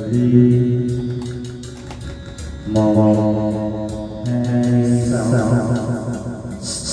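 Recorded instrumental music played back through a mixing desk and speakers under test: long held notes, a new note entering sharply about every one and a half to three seconds.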